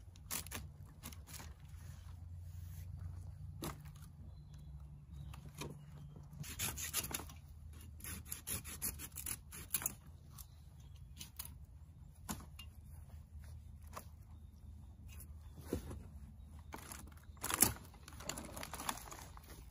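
Curved hand pruning saw cutting through splintered wood in irregular strokes. Several seconds in comes a run of quick back-and-forth strokes, about three a second, and the loudest stroke comes near the end.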